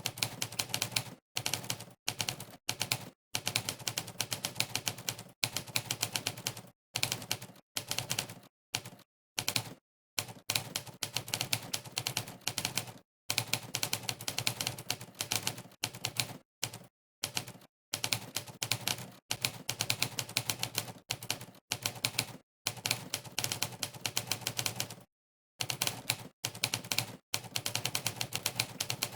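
Monkeytype's typewriter keypress sound effect: sampled typewriter key strikes, one for each keystroke, clicking in rapid runs during fast typing. The runs are broken every second or two by short gaps of dead silence.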